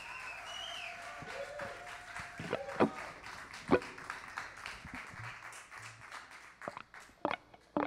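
Audience applause and a few cheers after a song ends, thinning out into scattered claps. Several sharp knocks stand out, the loudest about three and four seconds in and a few more near the end.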